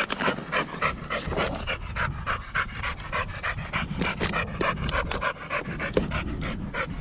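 A dog panting hard and fast, about five breaths a second, out of breath from running.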